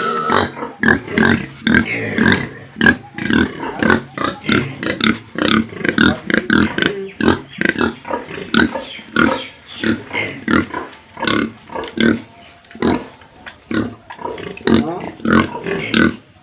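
Pigs calling in a dense run of short, overlapping calls, several a second.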